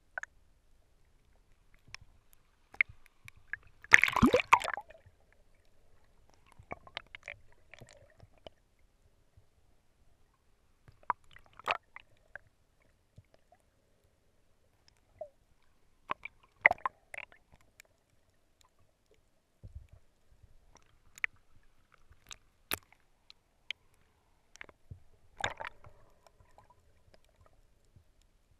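Water heard underwater through a camera housing: scattered sharp clicks and short gurgling, sloshing bursts every few seconds, the loudest about four seconds in, with near silence between.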